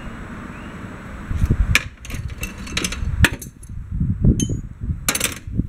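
Metal clanking and knocking of hand tools and bolts worked against a tractor's cast housing: a run of sharp, irregular strikes starting a little over a second in, one ringing briefly. A steady rush of wind on the microphone comes before them.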